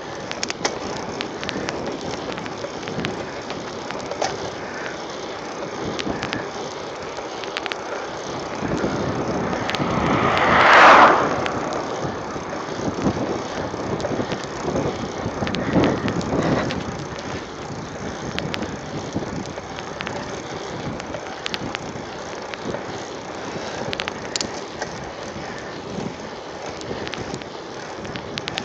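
Mountain bike rolling along an asphalt road: steady tyre and wind noise on the phone's microphone, with many small clicks and rattles from the bike. A loud rushing swell builds and fades about ten seconds in, and a smaller one a few seconds later.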